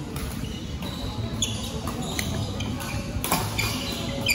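Badminton rally in a large hall: rackets hitting the shuttlecock in a string of sharp cracks, the loudest about three seconds in, with short shoe squeaks on the court floor and background chatter in the hall.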